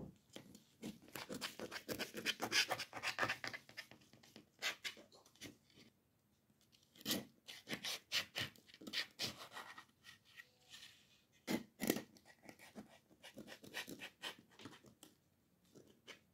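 A knife drawn through baked pakhlava along its cut lines, crackling through the crisp layers and scraping on the baking tray, in several bouts of scratchy strokes.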